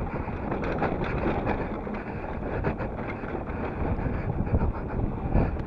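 Mountain bike rolling fast down a dry dirt trail: knobby tyres rumbling over the dirt and the bike rattling with many small knocks over bumps, with wind noise on the microphone.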